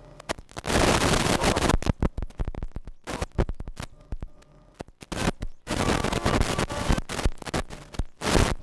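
Wind buffeting the camcorder's microphone in uneven gusts that die down around the middle and pick up again near the end.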